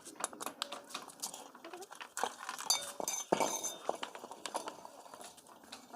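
Irregular metallic clinks and knocks of tools and hand-pump parts being handled during repair work.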